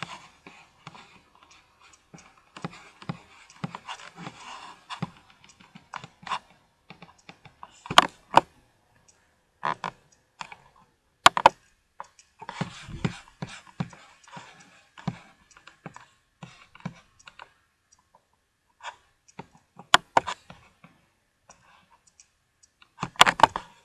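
Irregular tapping and clicking of typing on a computer keyboard and clicking a mouse, with a few louder sharp clicks scattered through.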